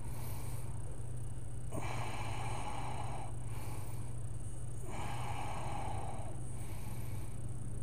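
A person's slow, deep yoga breathing close to the microphone: a long rushing breath about every three seconds, with fainter breaths between, while holding a pose. A steady low hum runs underneath.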